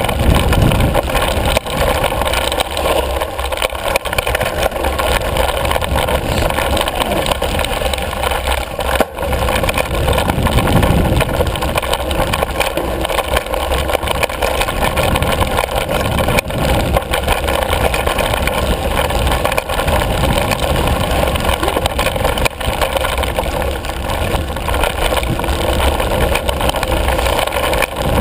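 Handlebar-camera ride noise from a Yeti ASR5 mountain bike descending a rough dirt trail: a steady rush of wind and tyre noise with heavy low rumble, broken by frequent small knocks and rattles as the bike runs over bumps, one sharper knock about nine seconds in.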